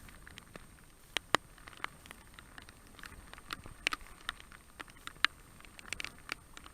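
Raindrops pattering irregularly: sharp separate taps, a few a second, at uneven loudness over a faint hiss.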